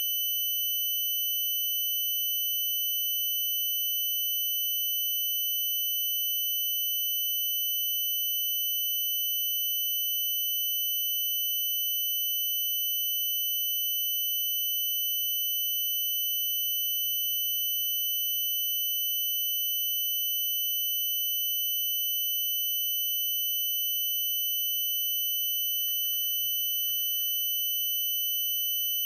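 A single steady high-pitched tone, unbroken and unchanging in pitch or loudness.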